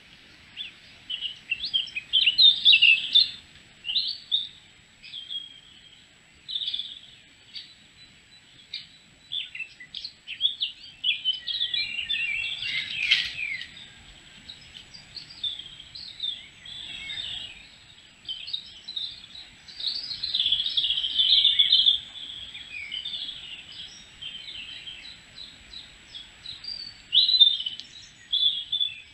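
Woodland songbirds singing and calling, many short, varied phrases overlapping one another, over a faint steady background hiss.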